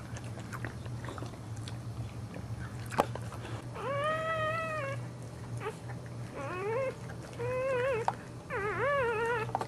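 Dog whimpering: four high, wavering cries, each about half a second to a second long, the first one held steady and the later ones bending up and down. Faint wet licking clicks come between them as a boxer mother cleans a newborn puppy.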